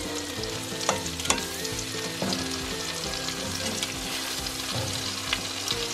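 Pork chop slices sizzling as they fry in hot margarine in a pan, a steady crackling hiss, with a few sharp clicks about a second and two seconds in.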